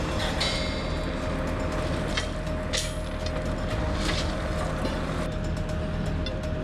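Heavy machinery running with a steady engine drone, with a few sharp metallic knocks, typical of railway repair work.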